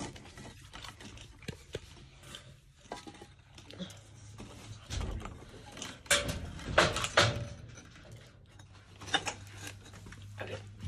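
Footsteps over fallen plaster and debris, with scattered knocks and clatters of rubble being stepped on and moved; the loudest cluster comes about six to seven seconds in.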